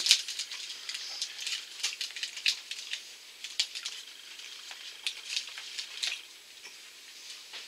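Paper and plastic packaging crinkling and rustling as it is handled: a run of irregular, sharp crackles.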